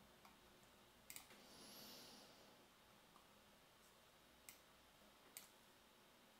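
Near silence with faint computer mouse clicks: a quick double click about a second in, then two single clicks near the end.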